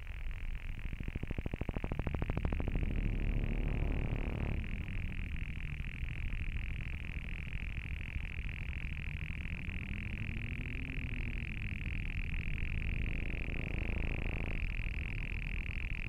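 Electronic glitch sound effect: a steady high-pitched whine over a low, distorted buzz, with a fast stuttering pulse about one to two seconds in.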